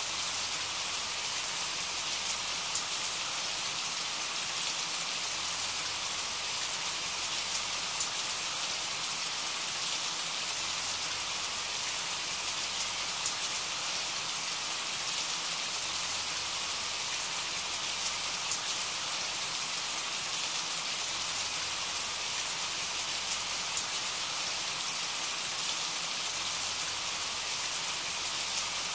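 Steady rain: an even hiss of rainfall with scattered ticks of single drops.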